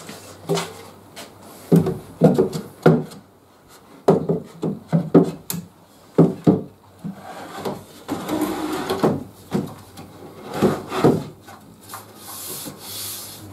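Solid pine drawers being slid into a pine cabinet frame and pushed home by hand during a test fit. Wood rubs on wood, with a series of short wooden knocks as the drawers bump into place, and a longer sliding rub about two-thirds of the way through.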